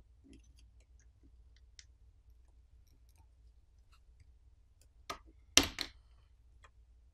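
A metal spudger prying at a Samsung Galaxy M34's camera bezel, with faint small ticks and scrapes, then two sharp clicks a little after five seconds in as the bezel pops loose from the phone's back.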